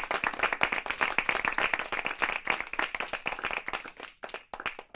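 Audience clapping, the claps thinning out in the last second and dying away.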